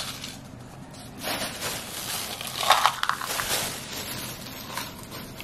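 Dried baby anchovies spilling from a paper cup into a dry nonstick pan and rustling and scratching against its surface, a brief burst at the start and then a longer dry rustle, loudest about three seconds in.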